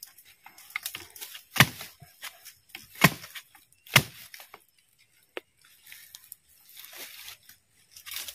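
Long-handled digging spade jabbed into soil and dry bamboo leaves at the base of a bamboo clump, digging out a bamboo shoot. There are three sharp strikes about a second apart in the first half, then scraping and rustling of dry leaves.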